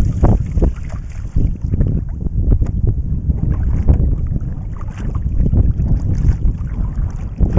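Wind buffeting the microphone of a kayak-mounted action camera, with splashing and dripping water from the strokes of a double-bladed kayak paddle.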